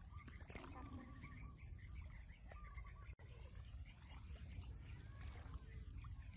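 Faint, repeated chirping animal calls over a steady low rumble, with a brief dropout about three seconds in.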